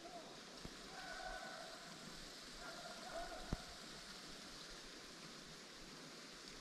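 Faint, distant hound dogs baying: a few drawn-out wavering calls over a steady outdoor hiss. A single sharp click comes about three and a half seconds in.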